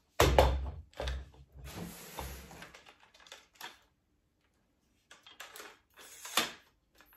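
Aluminium tripod wig stand being unfolded and adjusted: its metal legs and plastic leg clamps knock and clack. A heavy knock comes just after the start, then a run of rattling clicks, and a few more sharp clicks after a pause near the end.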